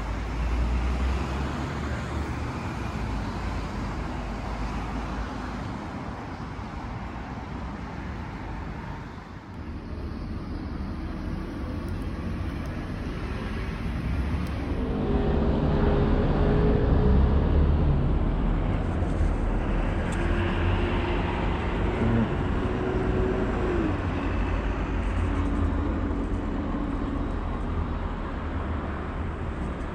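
Road traffic: a steady low rumble of cars on a street, swelling louder about halfway through as a vehicle with a humming engine goes by.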